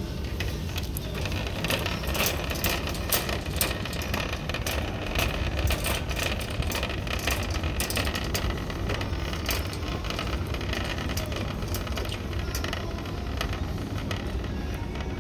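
Rapid rattling and clicking over a steady low rumble, busiest through the middle and thinning out near the end.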